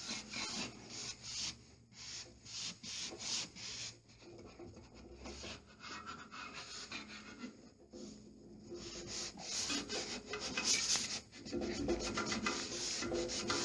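Short, repeated rubbing strokes over pasted lining paper on a wall as it is smoothed down, getting louder and quicker about two-thirds of the way in.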